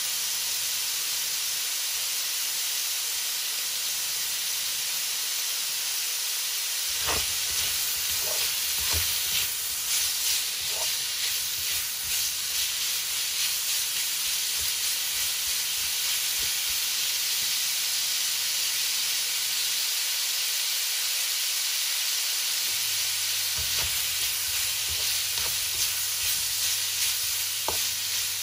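Pork belly searing in hot oil in a wok, a steady high sizzle, with a few short knocks around seven to eleven seconds in and again near the end.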